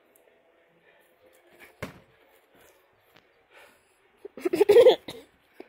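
A single dull thump about two seconds in, then a loud burst of a person's laughter near the end.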